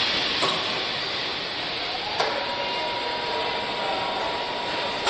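Factory assembly-line machinery noise: a steady mechanical hiss and hum, with a clack just under half a second in and another about two seconds in, after which a steady high tone sounds.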